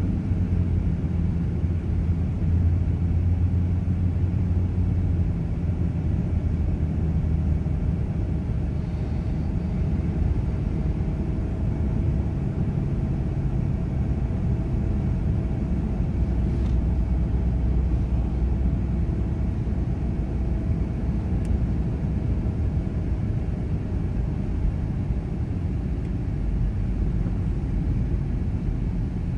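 Steady low road and engine rumble of a moving car, heard from inside the cabin, with a faint even hum through the middle stretch.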